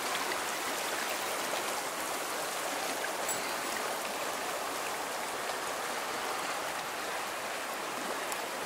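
A shallow, rocky mountain river flowing over stones, heard as a steady, even rush of water.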